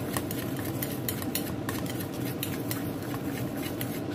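Chopsticks whisking a raw egg and shellfish mixture in a ceramic bowl: a quick, irregular run of clicks as the sticks strike the bowl, over a wet swishing of the beaten egg.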